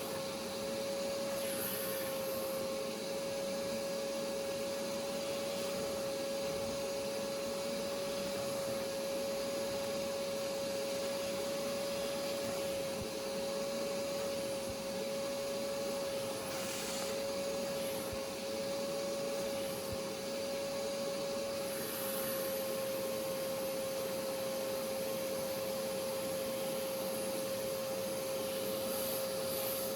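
Hoover pet stain carpet cleaner's vacuum motor running steadily with a high whine, with a few brief hisses from the cleaning attachment.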